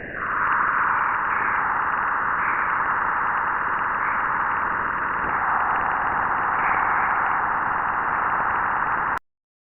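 A 'planet sound' space-audio track: a steady, rushing hiss with small swells, which cuts off suddenly near the end.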